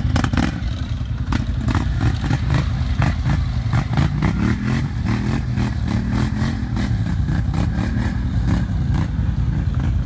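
Quad (ATV) engines running, one revving up and down as it drives through a shallow river, with a rapid clatter of sharp clicks throughout.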